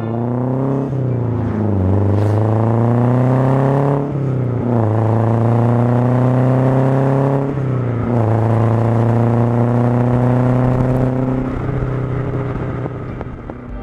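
BMW 2002ti's four-cylinder engine accelerating through the gears, its pitch climbing and dropping back at three upshifts, then holding steady and fading near the end.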